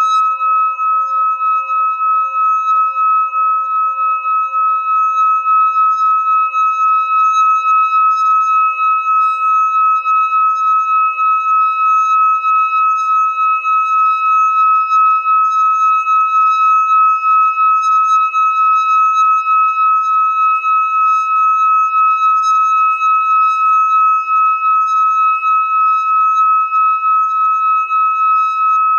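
A hand-held metal singing bowl being rimmed with a wooden stick, singing one steady sustained ringing tone with fainter overtones, its loudness pulsing slightly.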